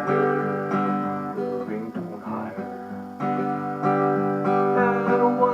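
Acoustic guitar music with strummed chords, dropping away about two seconds in and picking up again about a second later.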